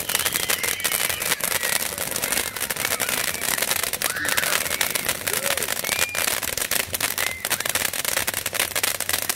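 A long, dense string of firecrackers going off in rapid crackling pops without a break, with voices faint beneath it.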